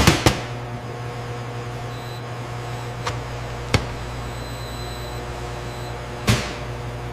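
Steady hum of factory machinery, with a few sharp knocks: two close together at the start, two more near the middle and one near the end.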